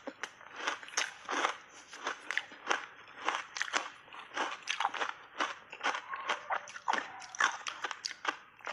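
Close-miked crunching and chewing of reshaped ice soaked in thick matcha tea, in quick irregular crunches, several a second.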